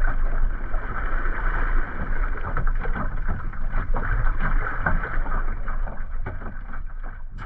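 Water slapping and rushing against the bow of a Mirror sailing dinghy under way through a light chop, with wind rumbling steadily on the microphone.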